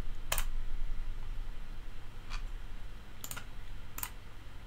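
Four separate clicks of a computer mouse, with pauses between them.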